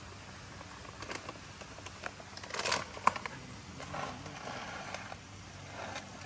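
Plastic bag of dog treats rustling and crinkling in hand, in short irregular bursts with small clicks, the loudest a little under three seconds in.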